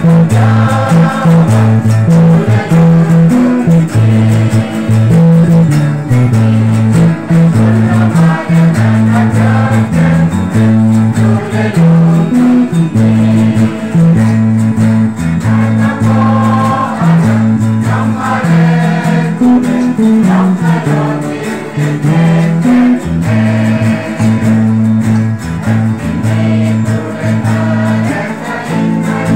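A group of voices singing a Christmas carol together to strummed acoustic guitars, with deep bass notes the loudest part of the mix.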